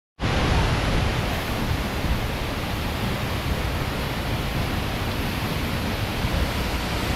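Tall waterfall plunging into a rock pool: a steady, even rush of falling water.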